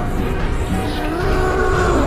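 Background music with sustained held tones that slowly glide in pitch over a dense low rumble.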